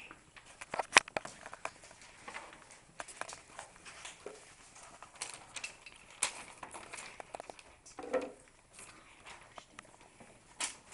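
Irregular sharp clicks and taps of handling, from jigsaw puzzle pieces moved about on a school desk and the handheld camera being handled. The loudest click comes about a second in, and a short low sound comes about eight seconds in.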